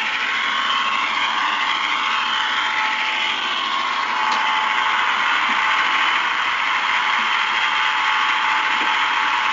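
Model train locomotive's electric motor and gears whirring steadily as it runs along the track, heard up close from the train itself, with a faint click now and then as the wheels cross the track.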